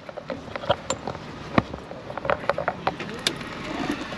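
Handling noise close to the microphone: a run of irregular clicks and knocks with some rustling.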